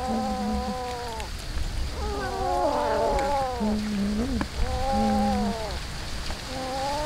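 Cats yowling and growling while crowding a shared bowl of raw fish: about four long, drawn-out calls, each falling in pitch at the end, with several overlapping around the middle.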